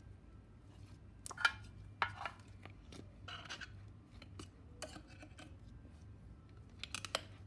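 Hands squeezing and stretching slime with beads mixed in, giving irregular bursts of sharp, sticky crackling clicks and pops.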